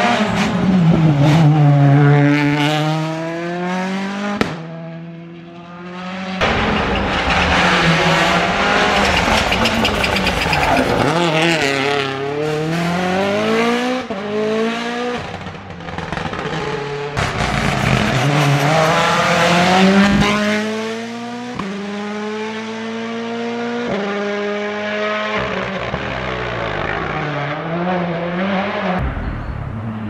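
Rally1 cars' turbocharged four-cylinder engines revving hard through the gears on a tarmac stage: the pitch climbs and drops again and again, with sharp cracks and pops at the gear changes as the cars pass close by.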